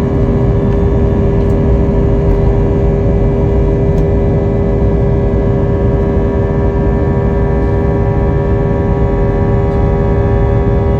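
Airbus A319's twin jet engines running steadily at high power: a loud, even rumble with a strong steady humming tone and fainter whining tones above it.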